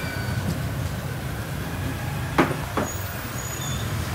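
Steady low background rumble. About two and a half seconds in come two sharp knocks of kitchen utensils, a third of a second apart.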